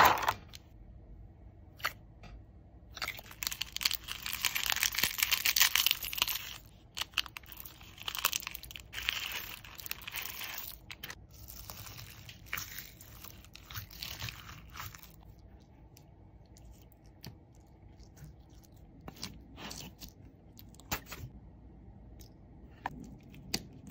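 Glittery slime packed with small plastic beads and sequins being kneaded and stirred by hand in a plastic tub: a dense wet crackling and crunching, heaviest in the first half. After that only scattered clicks and taps are left.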